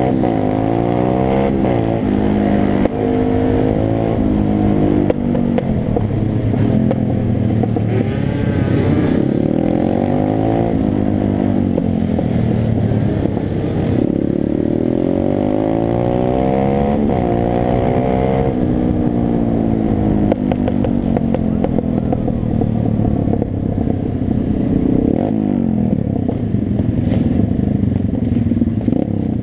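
Pit bike's single-cylinder engine revving repeatedly, its pitch climbing on each pull and falling back at each shift or throttle-off, heard from on the bike at riding speed with a steady low rumble of wind underneath.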